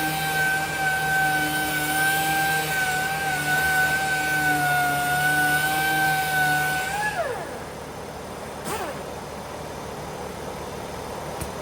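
Air-powered sanding tool running at a steady high whine with a hiss of air. About seven seconds in it is released and winds down, its pitch falling quickly. A moment later there is a second short blip that also winds down, and a quieter hiss stays.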